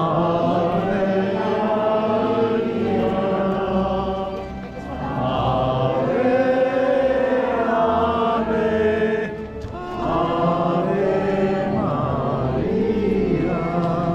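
Chant sung in long, slow, drawn-out phrases, broken by two short pauses, over a steady low hum.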